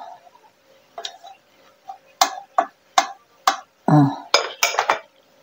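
Metal serving utensil clinking against a pot and a bowl while boiled pear and its spiced liquid are ladled out, a series of sharp clinks roughly every half second, with a short duller knock about four seconds in.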